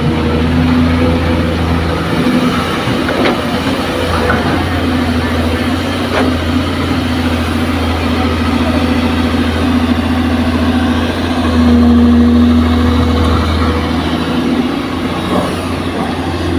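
Dump truck's diesel engine running steadily as the truck drives on a dirt haul road, getting louder for a couple of seconds about twelve seconds in, with a few faint knocks.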